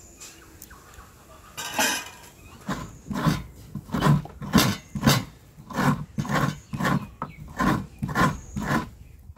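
Coconut half scraped by hand against the curved iron blade of a traditional coconut scraper on a wooden board: regular rasping strokes, about two a second, starting about a second and a half in.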